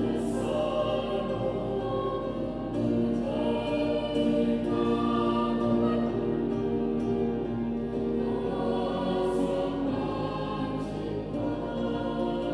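Junior high school student choir singing, holding long sustained notes.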